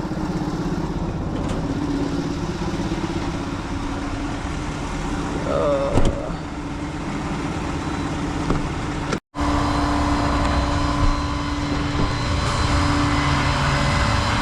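Truck engine and road noise inside the cab while driving, a steady hum. The sound cuts out for an instant about nine seconds in.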